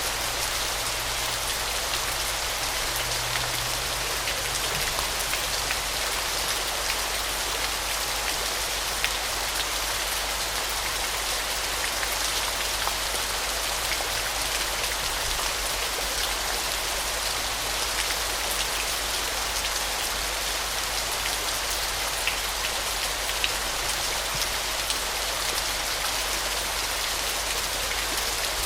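Waterfall water falling and splashing in a steady hiss that sits mostly in the upper range, with scattered small droplet ticks, close to the sound of heavy rain.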